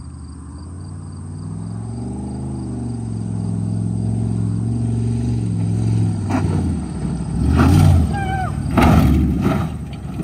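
Dodge Ram 1500 pickup's engine revving up and down, then running on as the truck accelerates along the dirt track toward the jump, with two loud rushing surges near the end.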